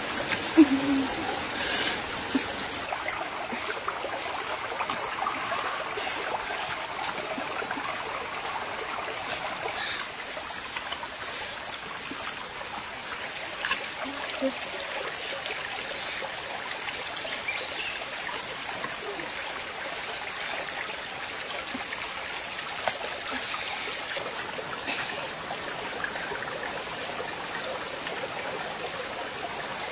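Steady rushing of running water, as from a nearby stream, with a thin high steady whine that drops out for about ten seconds and comes back. A few scattered faint clicks and snaps come as mushrooms are cut off a tree trunk with a knife.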